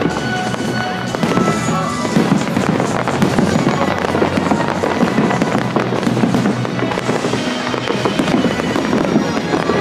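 Fireworks display: aerial shells bursting in a dense, continuous run of bangs and crackles, with music playing alongside.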